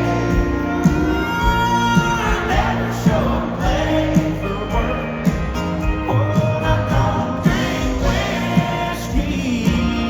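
Live country band music with a steady beat and sustained melodic lines, loud and continuous.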